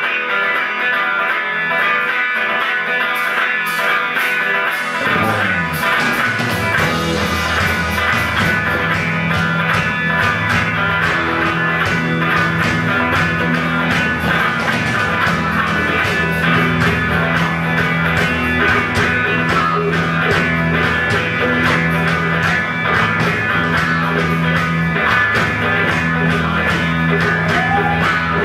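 Live rock band playing. Electric guitar plays alone at first; about five seconds in a low downward slide leads the bass and drums in, and the full band carries on.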